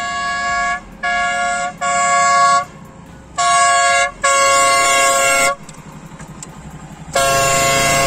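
A compact twin-tone electric air horn, its small built-in compressor motor blowing air through the horn, sounded on a motorcycle. It gives a string of short loud blasts of about a second each, with a longer pause before the last one.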